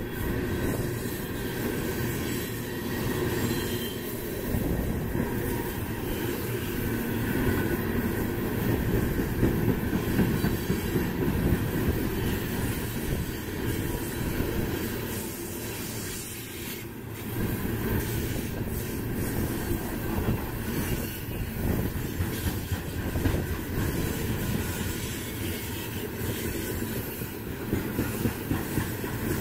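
Coal gondolas of a freight train rolling steadily past, the steel wheels rumbling and clattering on the rails.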